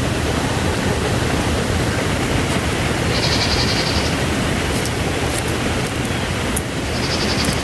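Steady rushing wind noise. A small bird gives a short, rapid high trill about three seconds in and again near the end.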